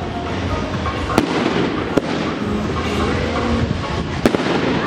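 Fireworks going off: sharp bangs of bursting shells about a second in, at two seconds and again just past four seconds, over a steady din.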